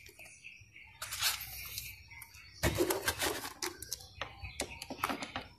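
Small metal parts clicking and scraping as a bolt and bushing are fitted by hand into a motorcycle cable-holder bracket: a short burst of light clicks about a second in, then a denser run of clicks and scrapes from a little before the halfway mark.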